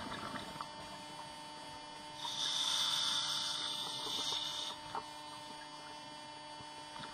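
Scuba regulator breathing heard underwater over a steady electrical hum. About two seconds in, an inhalation hiss lasts about two and a half seconds.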